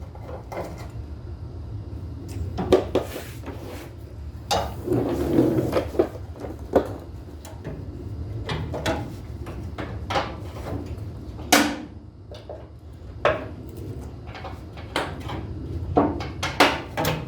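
Hand tools clanking and knocking against steel as a wrench and socket are worked on the trailer hitch bolts under a pickup truck: irregular knocks and clatters, a dozen or so, over a steady low hum.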